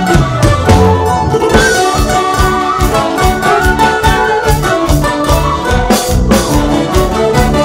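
Andean folk band playing a carnaval marqueño live: strummed guitars and a steady drum beat under an instrumental melody, with a quena (cane flute) playing.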